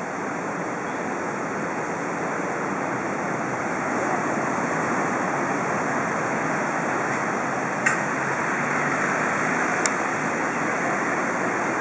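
Surf breaking on a sandy beach: a steady rush of waves that grows a little louder about four seconds in. Two short sharp clicks come near the end, about two seconds apart.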